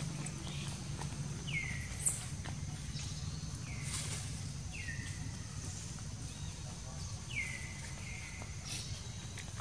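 Short high-pitched animal calls repeated every second or two, each sliding down in pitch, over a steady low rumble.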